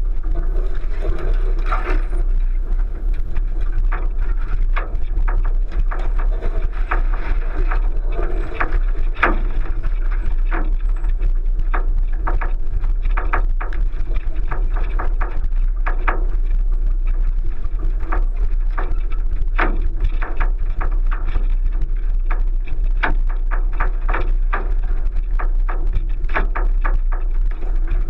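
1999 Subaru Forester driving slowly over a rough off-road track, heard from a roof-mounted camera: a steady low rumble with frequent irregular knocks and clatters from the body and suspension over ruts and bumps.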